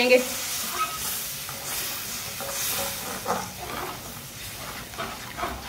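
Tomato and spice masala, thinned with a little water, sizzling with a steady hiss in an aluminium karahi while a metal ladle stirs it, with light scrapes of the ladle against the pan.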